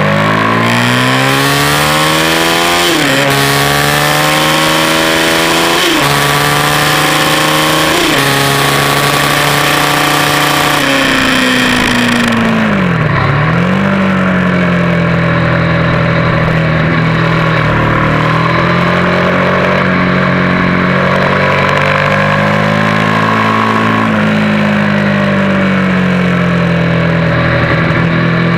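Race motorcycle engine heard onboard, revving up through the gears with three quick upshifts while wind rushes past at speed. The revs then fall away with a sharp dip about thirteen seconds in, as it brakes and shifts down, and it runs on at lower, steadier revs for the rest.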